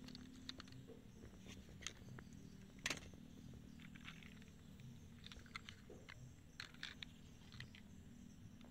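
Near silence with scattered faint clicks and rustles of small plastic toy vehicles being handled and moved in grass, the sharpest click about three seconds in, over a low steady hum.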